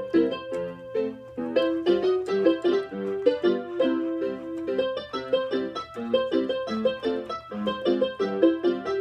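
Piano playing a melody of quick, evenly paced notes.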